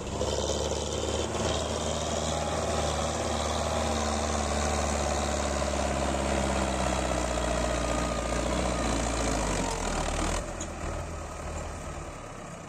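Tractor engine running steadily, dropping a little in level about ten seconds in.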